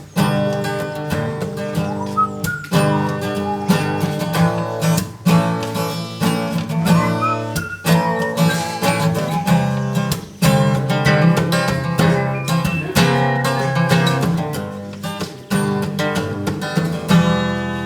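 Instrumental break in a folk song: acoustic guitar strummed and picked over a steady bass line, with no vocals.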